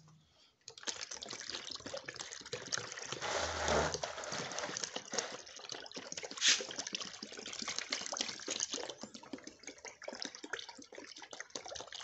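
Liquid poured from a plastic bottle into a plastic basin of soaked poultry manure, splashing and gurgling as it goes. The soak is being topped up with water to dilute it into fertiliser. The pouring starts about a second in, and there is one sharp crack about six and a half seconds in.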